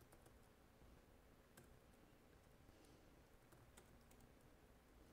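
Faint, scattered keystrokes on a computer keyboard over near-silent room tone.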